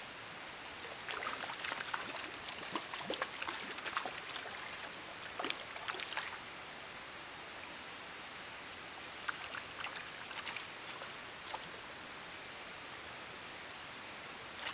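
Water splashing in a shallow beaver pond as a hooked brook trout is played and netted: irregular bursts of splashes in two spells, the first longer, then a second shorter one a few seconds later, over a steady hiss.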